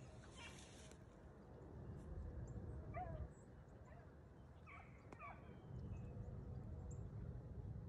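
Beagles baying faintly at a distance while running a rabbit, a few short bawls coming in clusters about three and five seconds in.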